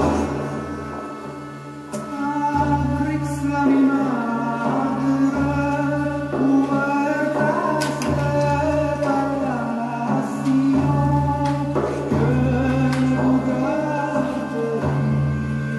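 Music for the dance: voices singing a slow, held melody over a steady low drone.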